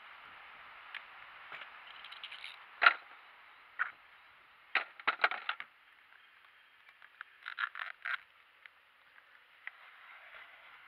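Handling noises: sharp knocks, clicks and scrapes as an RC race boat is set on an aluminium case and a strap is pulled across and fastened over it. The loudest knock comes about 3 s in, with a quick run of clicks around 5 s and another cluster near 8 s.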